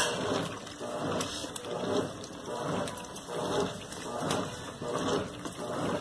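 GE Super Capacity top-load washer agitating a wash load: water and clothes sloshing in the tub, swelling about every three-quarters of a second as the agitator swings back and forth.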